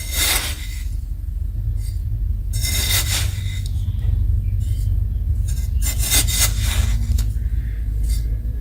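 Rough rubbing or scraping strokes, three main ones, over a steady low rumble.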